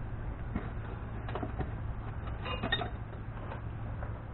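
A few light clicks and metallic clinks of hand tools being handled as pliers are picked up, with a short ringing clink about two and a half seconds in, over a steady low hum.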